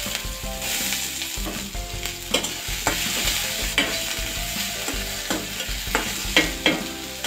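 Chopped onion frying in hot oil in a kadhai, sizzling steadily, while a metal spatula stirs it and scrapes the pan several times.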